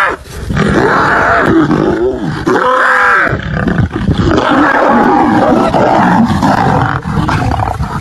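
Lions growling and roaring as they fight: a loud, continuous, rough din with rising and falling roars.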